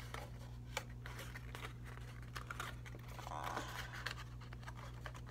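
A sheet of paper being folded and creased by hand, with soft rustles and small crinkles that are a little louder about three and a half seconds in, over a steady low hum.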